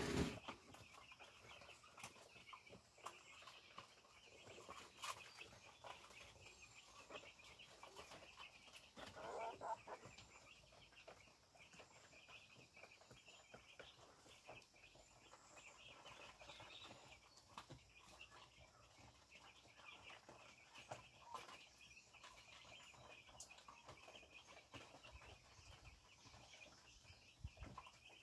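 Chickens clucking faintly now and then, with a somewhat louder cluck about nine to ten seconds in, over a steady high background hiss.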